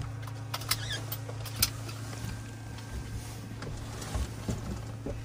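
Steady low hum of a Eurocopter EC130 helicopter heard inside its cabin, with a few sharp clicks in the first two seconds.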